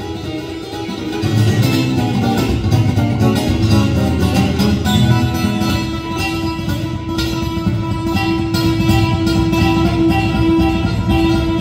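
Solo steel-string acoustic guitar played fingerstyle live, with many quick plucked notes over bass and chords. From about five seconds in, one note is repeated steadily above the other parts.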